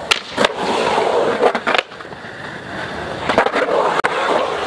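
Skateboard wheels rolling on a concrete bowl with a steady rumble, broken by several sharp clacks from the board and trucks striking the concrete.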